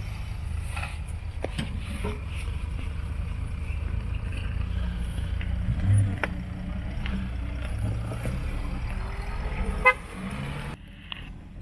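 Jeep Grand Cherokee's engine running at low revs as it crawls over a loose rocky mound, with scattered clicks and knocks of stones under the tyres. A short car-horn beep comes about ten seconds in.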